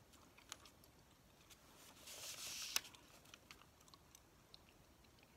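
Soft rustle of a newsprint grocery ad flyer being handled and shifted about two seconds in, ending in a sharp tap, with faint scattered clicks around it.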